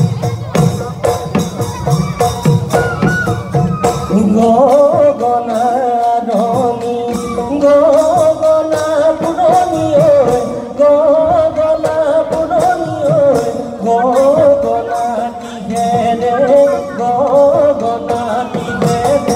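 Bihu folk music: brisk drumming, with a wavering melody line coming in over it about four seconds in and carrying on with the rhythm.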